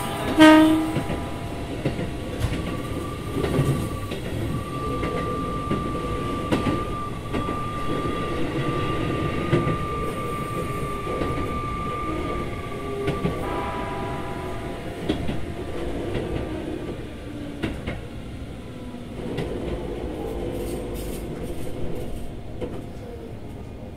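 Keikyu 2000-series electric train running, heard from aboard: wheels and motors rolling on the rails. There is a short loud pitched sound about half a second in, a steady high whine through the middle, and lower tones falling in pitch in the second half.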